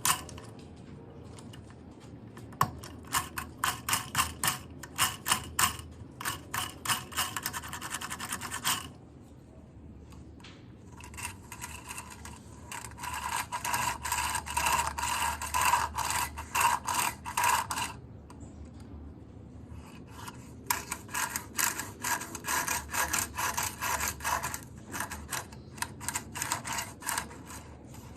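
A hand tool rasping back and forth, several quick strokes a second, in three runs of several seconds each with short pauses between them.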